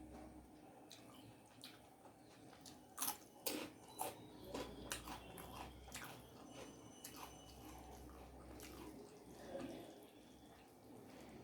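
A person eating rice with dal and egg curry: faint wet squishing and chewing, with a few sharp clicks and smacks bunched between about three and five seconds in.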